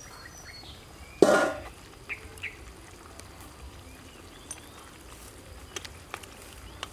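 A steady high insect hum with one short, loud cry about a second in, and two small chirps just after. Near the end, chopsticks click lightly against bowls and the metal wok as soup is served.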